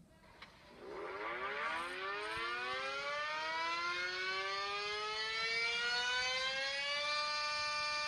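Sentry 40V2T electromechanical outdoor warning siren starting up: about a second in it begins winding up, its pitch rising steadily for several seconds before levelling off near the end.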